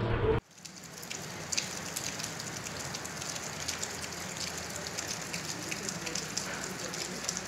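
Rain falling steadily: a constant hiss with the taps of many individual drops striking a surface.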